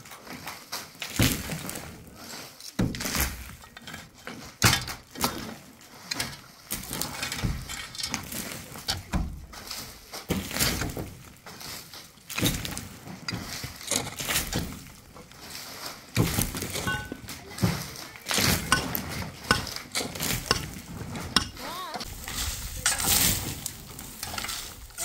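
Metal shovels scraping and striking packed earth and stones while an earthen roof is broken up, with clods and loose dirt falling through into the room below. Irregular scrapes, knocks and clinks follow one another throughout.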